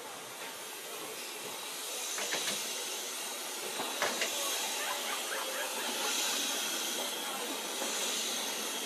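Narrow-gauge steam locomotive letting off steam: a steady hiss that swells over the first few seconds, with a couple of brief knocks about two and four seconds in.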